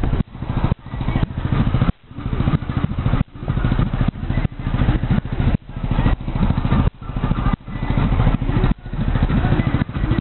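Motorcycle engine running at steady road speed, a fast even pulsing, with the sound dropping out briefly about once a second.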